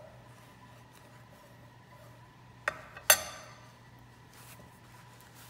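Chef's knife set down on a wooden butcher-block cutting board: two quick knocks about three seconds in, the second louder with a brief metallic clink.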